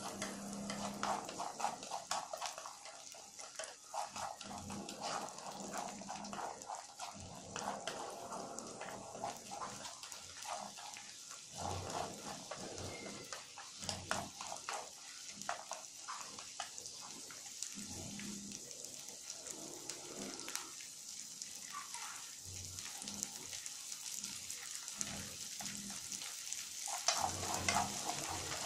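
Corn kernels sizzling in a frying pan while chopsticks stir them, with irregular clicks and scrapes of the chopsticks against the pan over a steady hiss. The sizzle grows louder near the end.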